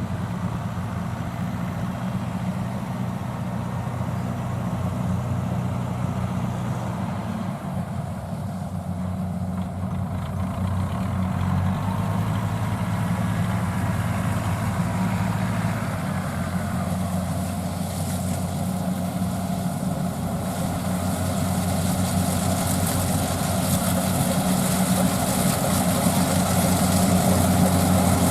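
Rice combine harvester's diesel engine running steadily, getting gradually louder over the last several seconds.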